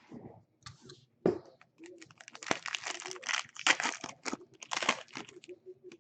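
Foil trading-card pack wrappers crinkling and tearing as packs are ripped open, with a sharp knock about a second in and a dense stretch of crackling through the middle.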